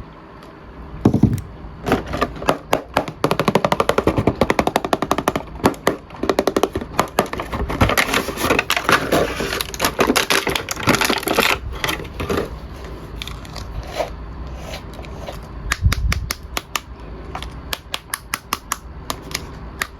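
Rapid runs of sharp clicks and rattles from hard plastic toys being handled, uneven in speed and loudness.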